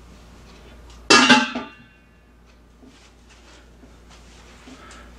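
Metal cookware set down with a single loud clang about a second in, ringing briefly as it dies away, followed by a few faint knocks.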